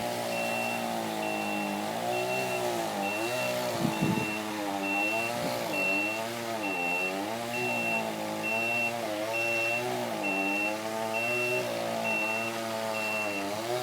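A utility truck's engine running, its speed rising and falling over and over, with a backup alarm beeping steadily, a little under two beeps a second. A couple of brief knocks come about four and five and a half seconds in.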